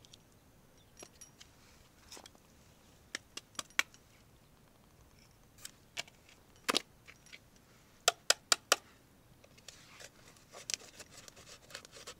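Sharp clicks and taps of hard objects being handled, with one loud click about a third of the way in and four quick clicks in a row about two-thirds of the way in.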